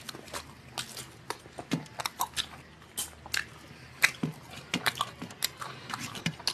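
Eating sounds of two people eating rice and chicken curry with their hands: chewing and mouth clicks, with fingers mixing rice on steel plates. They come as irregular small clicks, several a second.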